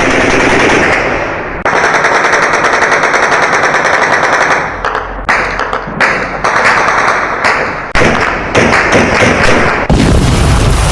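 Loud, harsh, rapid-fire rattling noise like machine-gun fire, in a run of bursts broken by short breaks.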